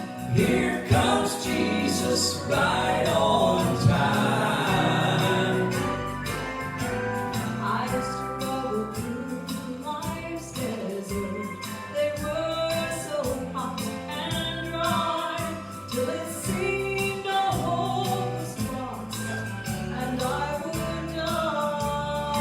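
Gospel trio singing in harmony over musical accompaniment.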